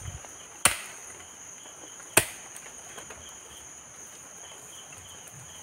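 Two sharp strikes of a long-handled hoe blade into the soil, about a second and a half apart, over steady high-pitched insect chirring.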